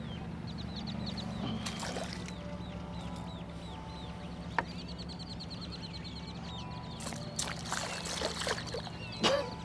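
A hooked striper splashing and thrashing at the surface beside a kayak as it is reeled in, with several splashes in the last couple of seconds, the loudest near the end. Underneath runs a steady low hum and a fast string of high chirps.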